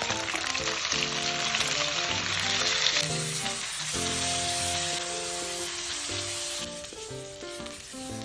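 Food sizzling as it fries, loudest in the first few seconds and dying down near the end, with background music underneath.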